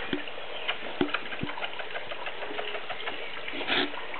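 Patterdale terrier puppy's claws clicking on stone paving tiles: a quick, irregular run of light ticks.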